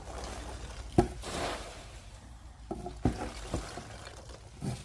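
Foam packing peanuts being poured into a cardboard box, a continuous rustling pour with a few sharp clicks and knocks.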